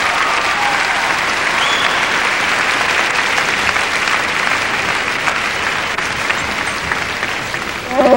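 Audience applauding steadily. Near the end, Chewbacca's loud Wookiee roar cuts in over the clapping.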